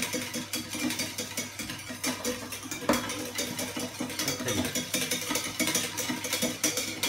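A utensil stirring a sabayon folded with whipped cream in a stainless steel saucepan, making a fast run of scraping clicks against the metal pan.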